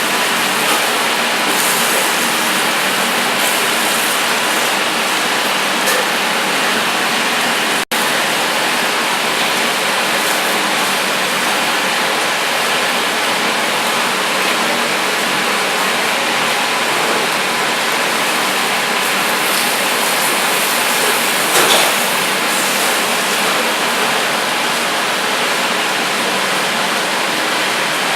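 Steaks sizzling steadily on a grill, the fat of the marbling melting and spitting. The sizzle cuts out for an instant about eight seconds in.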